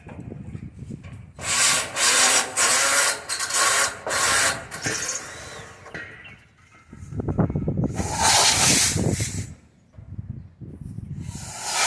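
Irregular spells of harsh mechanical work noise, the sound of tools and metal parts being worked on during the replacement of an air-conditioner condenser fan motor.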